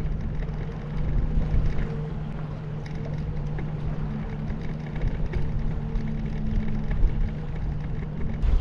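Boat motor running steadily at slow trolling speed: a constant low hum with a deeper rumble underneath.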